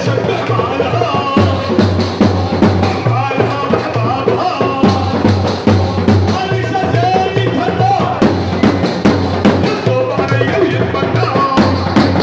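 Live zaffa wedding procession music: drums keep a steady, driving beat under a singer on a microphone and a melodic line.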